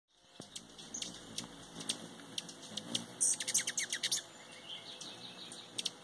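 Hummingbirds calling at a feeder: scattered sharp chips, then a fast run of chips about three seconds in.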